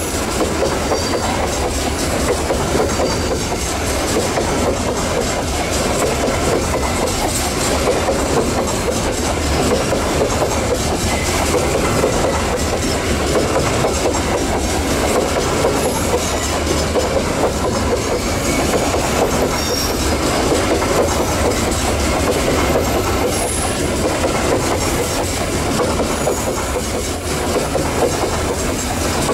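Long coal train of steel open hopper wagons rolling past, a steady noise of steel wheels running on the rails that keeps up without a break.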